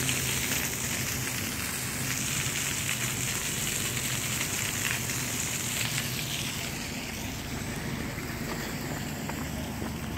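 Water jetting from a leaking automatic sprinkler head: a steady hiss of spray.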